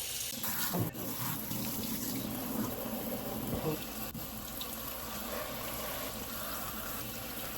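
Tap water running steadily into a sink while a mop head is rinsed under it, with a couple of brief knocks.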